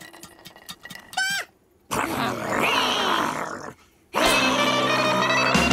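Cartoon sound effects: small clatters of debris settling after a grill crash and a short rising squeak, then a loud snarling growl from the three animal characters for about two seconds in the middle. Music comes in near the end.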